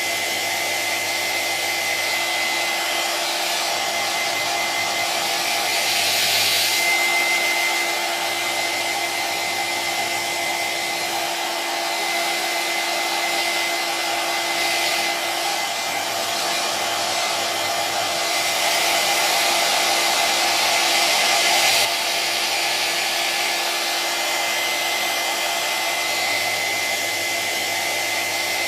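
Electric hair dryer running steadily: a constant rush of blown air with a faint high whine. The air noise swells twice, briefly about six seconds in and again from about eighteen seconds, dropping back suddenly near twenty-two seconds.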